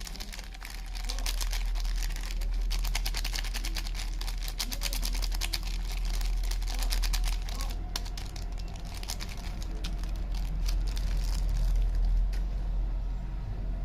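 Soap packaging being unwrapped: paper or plastic wrapping crinkling and crackling densely, thinning out after about eight seconds and fading near the end. A low steady hum runs underneath.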